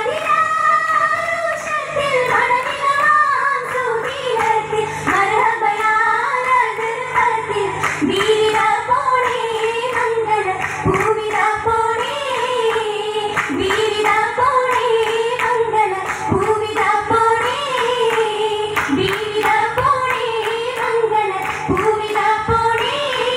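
Girls' voices singing a Mappila song together for an Oppana dance, the melody wavering and turning, with the dancers' hand claps.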